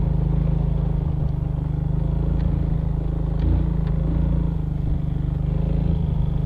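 Suzuki Smash Revo's small single-cylinder four-stroke engine running under load, pulling up a steep rocky dirt slope on a small 14/34 sprocket set. A few light ticks come through over the steady engine sound.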